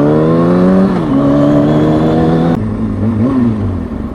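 2003 Kawasaki ZX-6R 636's inline-four engine pulling hard with its pitch climbing. It dips at a gear change about a second in, climbs again, then the throttle closes sharply about two and a half seconds in, with a short rev blip just after three seconds in.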